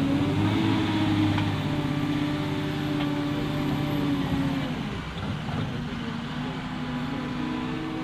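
Diesel engine of a Claas Torion 1511P wheel loader running at working revs; its note drops about five seconds in and climbs back near the end.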